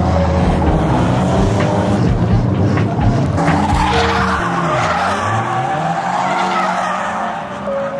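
Drift car engine at high revs with tyres skidding and squealing through a slide. About halfway through, the revs drop and climb again.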